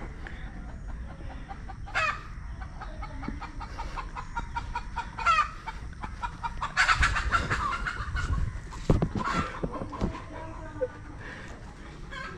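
Chickens clucking and calling: single short calls about two and five seconds in, then a busier run of clucking around seven seconds in.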